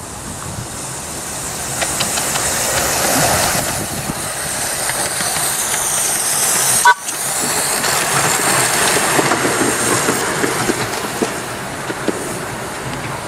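Miniature 'Northern Rock'-class 4-6-2 steam locomotive passing close by with its wagons: a steady hiss of steam and running noise that rises as it nears and eases as it draws away, with scattered light clicks. There is a sharp click and a brief cut-out about seven seconds in.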